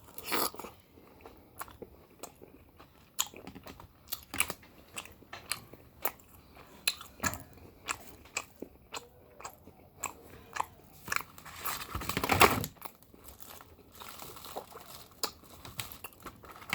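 A person chewing a piece of filet mignon close to the microphone: a run of wet mouth clicks and smacks, with a louder burst of noise about twelve seconds in.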